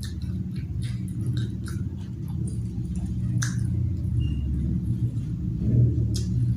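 A person chewing food close to the microphone, with scattered sharp crunches and mouth clicks over a continuous low rumble.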